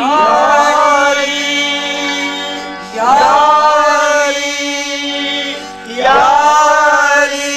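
Music: a man sings a Punjabi Sufi devotional song in praise of Ali, over a steady low drone. He sings three long phrases, each gliding up into a drawn-out, wavering note, about three seconds apart.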